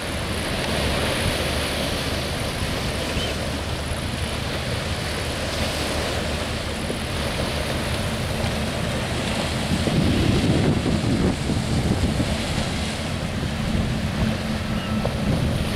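Wind buffeting the microphone over small waves washing on a rocky shore, gusting louder about ten seconds in.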